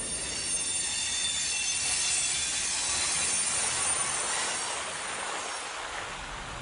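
A train rolling past with its wheels squealing in several high, steady tones, which fade after about three seconds into a steady hiss.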